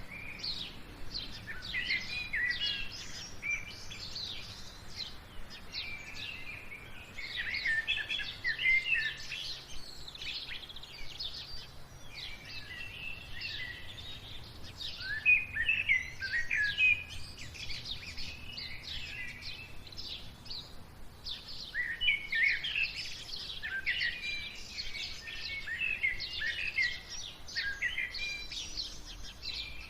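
Small birds chirping and twittering: rapid clusters of short, high calls that come in busier bouts with thinner stretches between.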